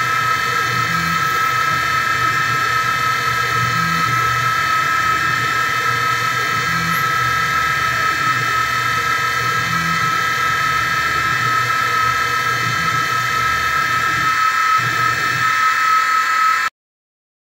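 Small benchtop CNC mill running at 2500 rpm, its 1/4-inch two-flute carbide end mill cutting acetal plastic, with a steady high whine over a low, uneven pulsing. The sound cuts off abruptly near the end.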